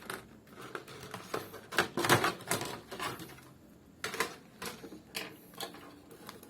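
Irregular clicks, taps and light rattles of hands handling a 9.5 mm laptop hard-drive caddy and its small parts, with a few sharper clicks about two, four and five seconds in.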